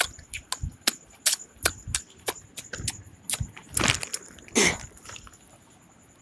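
Close handling noise on the phone microphone: a quick series of clicks and taps as a baby's hands grab at the phone, then two louder scraping rubs a little past the middle.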